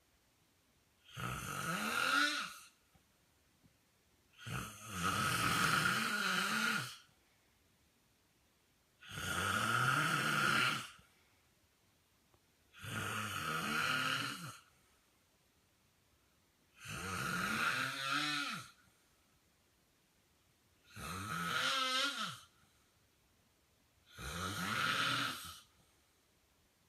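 A man snoring in his sleep: seven long, rough snores, about one every four seconds, with near silence between them.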